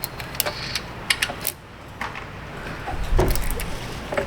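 Hands working with small metal and plastic parts on an A/C compressor: a quick series of sharp clicks and taps in the first second and a half, then a low rumble and a knock about three seconds in.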